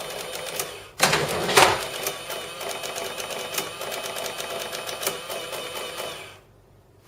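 Sharp XE-A106 cash register printing a customer receipt: a loud clatter about a second in, then the receipt printer running with a steady run of rapid ticks for about five seconds before stopping near the end.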